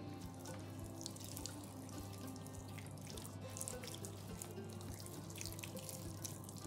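Water splashing in small irregular spatters, over background music.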